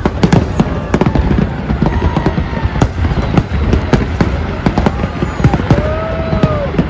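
Professional fireworks display going off: a dense, rapid string of sharp bangs and crackles, several a second.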